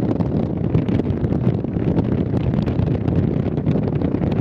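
Wind buffeting the camera microphone: a steady, loud low noise with small crackles throughout.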